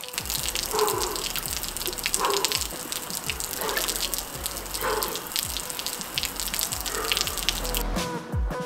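Garden hose spraying a stream of water that splashes onto wet stone paving: a steady spattering hiss.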